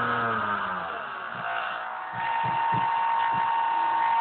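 The electric motor of an RC Art Tech Cessna 182 spins down as the throttle is cut, its pitch falling away within the first second. A few soft low thumps follow, then a steady high-pitched beep-like whine from the motor at low throttle.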